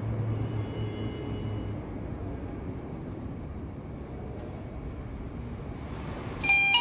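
Steady background rumble, then near the end a fire alarm sounder starts suddenly and loudly with several electronic tones at once: the pre-alarm, signalling that the first smoke detector zone has tripped.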